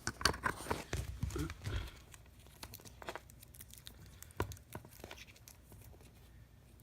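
Clicks and rustles of a USB charging cable being handled and plugged into a portable battery bank. They are busiest in the first two seconds, then thin out, with one sharper click about four and a half seconds in.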